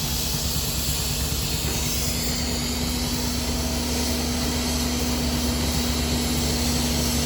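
1912 Case 40 hp steam traction engine running a belt-driven sawmill: a steady mechanical hum with a held low tone and a constant hiss of steam.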